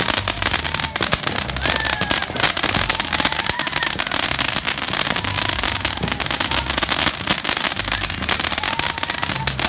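Ground fountain firework spraying sparks: a steady hiss packed with rapid, continuous crackling and popping from its bursting stars.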